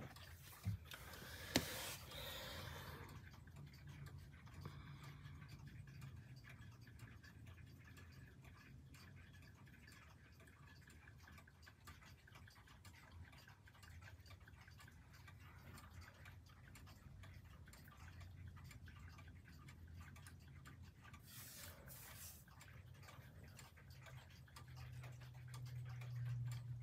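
Near silence: faint room tone with a low steady hum. Two sharp clicks and a short rustle come in the first two or three seconds, and a brief rustle comes later.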